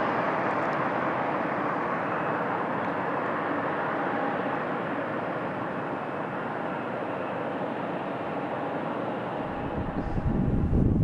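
A car passing on the road and fading away, its tyre noise slowly dying down, over a faint steady whine of jet engines from the airport. Wind starts buffeting the microphone near the end.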